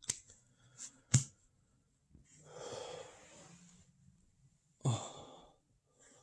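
A person breathing out heavily twice: a long breathy exhale about two seconds in and a shorter, louder one near the end. A sharp click comes about a second in.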